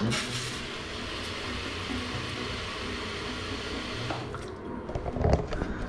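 Electronic smart toilet's automatic flush: water rushes steadily through the bowl for about four seconds, then dies away.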